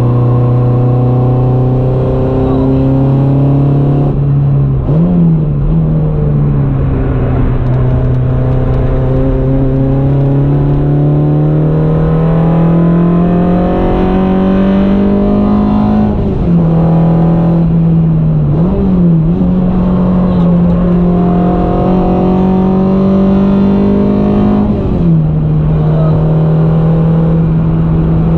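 Peugeot 106 engine heard from inside the cabin under hard acceleration, over road and wind noise. Its pitch climbs slowly through long gears and drops sharply at gear changes, with short up-and-down blips about 5, 16, 19 and 25 seconds in.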